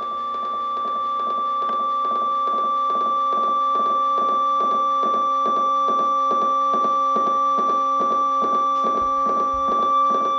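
Electronic drone of several steady held tones played through small amplifiers, with an even pulsing of about three beats a second. It swells in loudness over the first few seconds, then holds steady.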